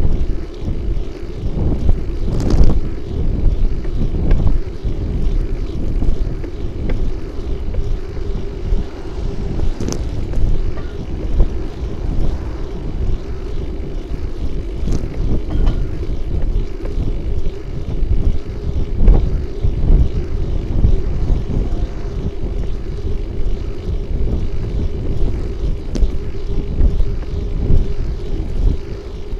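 Wind buffeting the microphone of a bike-mounted camera while riding along a road: a loud, uneven low rumble over a steady hum, with a few brief knocks.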